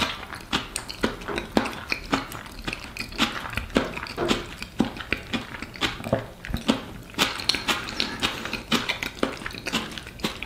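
A person chewing a mouthful of caviar-topped stuffed egg close to the microphone: irregular mouth clicks and smacks, a few a second.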